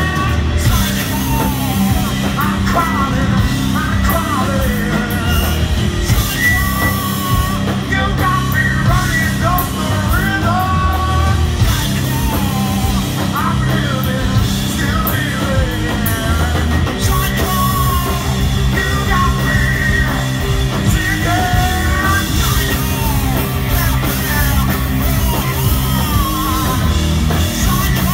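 Live stoner rock band playing loud: electric guitars, bass and drums, with a singer's yelled vocals over them, heard from within the crowd.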